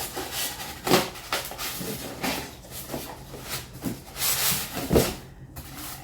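Handling of a new handheld vacuum cleaner and its packaging: irregular plastic knocks and rustling, with two louder knocks about a second in and about five seconds in.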